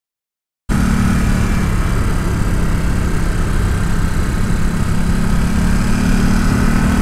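A Ducati SuperSport's L-twin engine running steadily while the bike is ridden, with wind rush over the onboard microphone. It cuts in abruptly under a second in, after silence.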